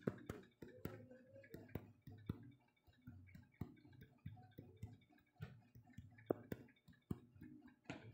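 Faint, irregular clicks and small ticks over a low steady hum.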